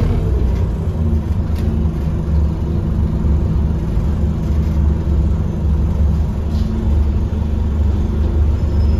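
Scania OmniCity double-decker bus running along the road, heard from inside the passenger saloon: a steady low rumble from its five-cylinder diesel engine, mixed with road noise.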